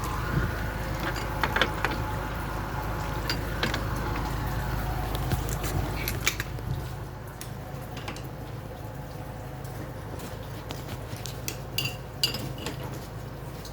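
Light metallic clinks and taps from tools and fittings being handled during air-conditioner repair work, over a steady low hum that drops away about six and a half seconds in.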